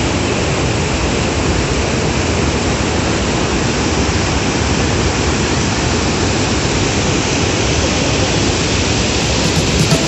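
Waterfall: muddy, rain-swollen water rushing steadily over rock ledges and churning into the pool below, running at high rainy-season flow.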